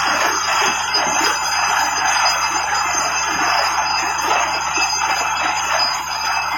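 Water borewell drilling rig running: a loud, steady mechanical noise with a low hum underneath.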